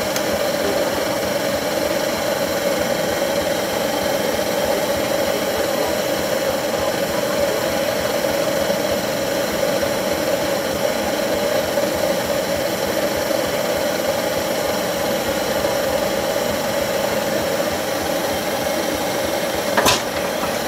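A tractor engine running steadily at a constant speed, with no revving. There is a single sharp knock near the end.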